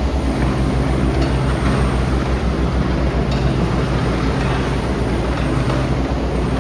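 JCB 15C-1 mini excavator's diesel engine running steadily, with a couple of faint clicks.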